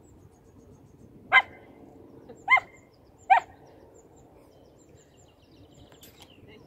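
A dog barking three times, short sharp barks about a second apart.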